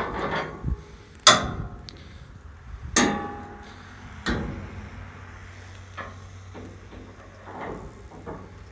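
Metal clanks and knocks as a rotating steel-mesh feeder in a kennel's grating is swung round on its pivot: two sharp knocks about one and three seconds in, then a few lighter ones.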